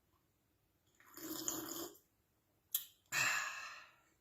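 A man belching twice: once about a second in, then again, longer, about three seconds in, with a short click between.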